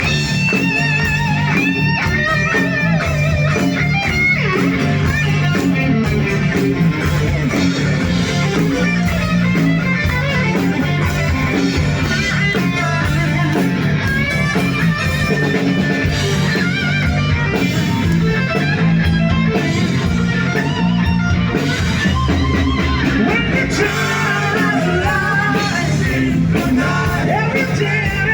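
Rock band playing live through a loud PA, with a lead electric guitar carrying an instrumental stretch of the song over bass and drums.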